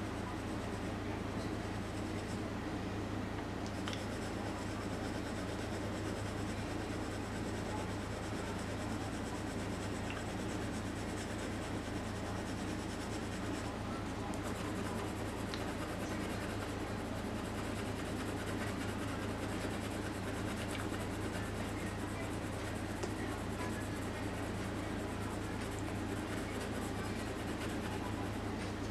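Graphite pencil shading on drawing paper: a continuous soft scratching and rubbing, over a steady low hum.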